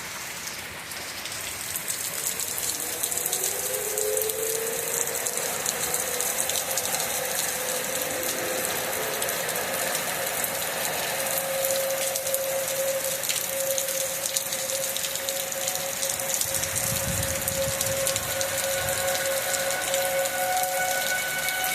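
Outdoor tornado warning siren winding up, its pitch rising over a few seconds and then holding a steady wail, over the hiss of heavy rain.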